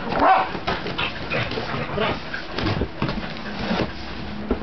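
Cardboard boxes being opened and their flaps handled, with repeated short scrapes and knocks. A dog gives a short whine about a third of a second in.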